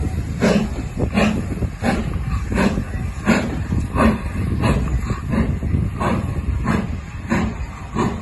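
GWR Castle class 4-6-0 steam locomotive 5043 Earl of Mount Edgcumbe working hard as it hauls its coaches, its exhaust chuffing in a steady beat of about three a second over the rumble of the train.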